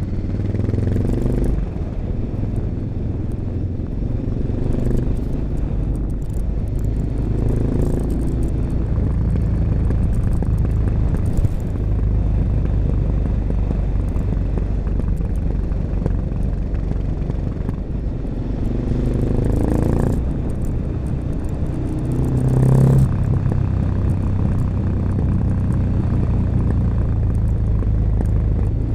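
1986 Honda XL600RM's single-cylinder four-stroke engine running through an XRacing exhaust with a dB killer under way, the throttle opened and closed as it rides, with several brief revving surges. The strongest surge comes a little over two-thirds of the way through.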